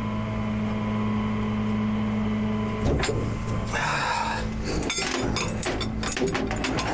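Rollback tow truck's hydraulics running with a steady hum, which drops about three seconds in. Then comes scraping and a run of short metallic clanks and knocks as the rigging is worked around the axle.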